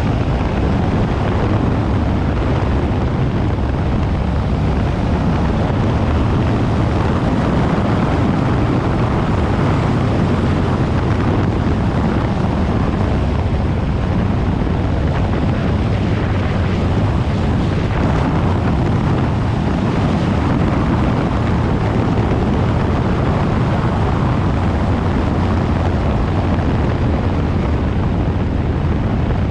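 Yamaha Ténéré 700's parallel-twin engine running steadily as the motorcycle is ridden.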